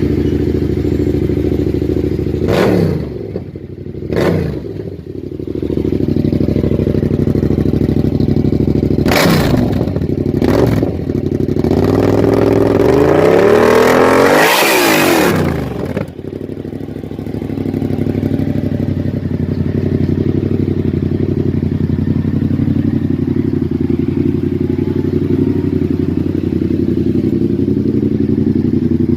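Yamaha MT-07's parallel-twin engine and exhaust idling and being revved: four short blips of the throttle, then a longer rev that climbs and falls back about halfway through, then a steady idle.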